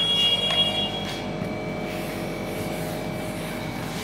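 A yellow sponge eraser rubbing across a whiteboard as the board is wiped clean, a soft, even scrubbing.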